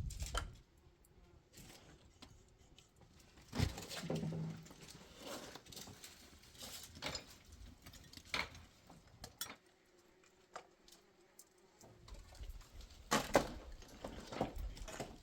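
Irregular light knocks and clatters of objects being handled, with quiet gaps between; the loudest knocks come about three and a half seconds in and again about thirteen seconds in.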